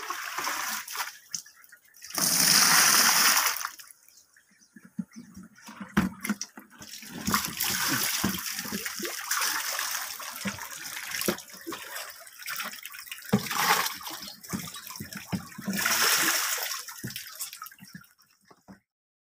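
Water splashing and pouring in irregular bursts, the loudest about two seconds in, with scattered knocks and clicks in between.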